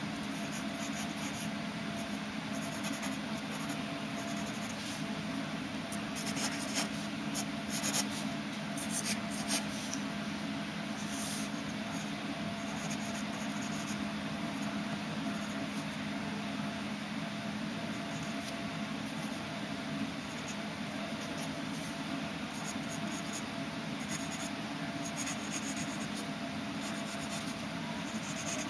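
Graphite pencil scratching on paper in short sketching strokes, with a cluster of louder strokes a few seconds in. A steady low hum runs underneath.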